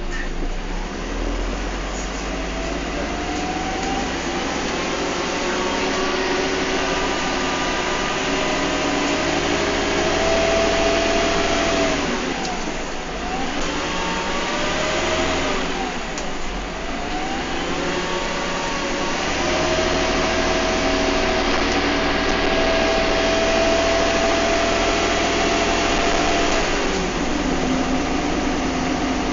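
Bus engine and transmission heard from on board, with a whine that rises in pitch as the bus gathers speed. The pitch drops and swoops twice about halfway through, rises again to a steady high running note, then falls near the end as the bus eases off.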